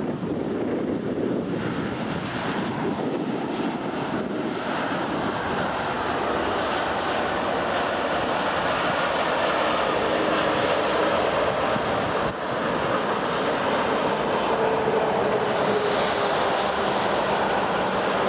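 Jet engines of a Boeing 787-9 airliner, Rolls-Royce Trent 1000s, running as it taxis, a steady roar that grows gradually louder.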